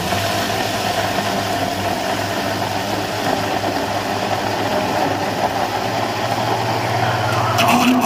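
Electric blender motor running steadily at full speed, its blades churning mango chunks, milk and sugar into a smooth shake.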